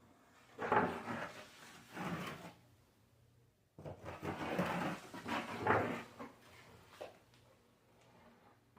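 Rough scraping or rubbing strokes on a hard surface in two spells of about two seconds each, with a few short knocks.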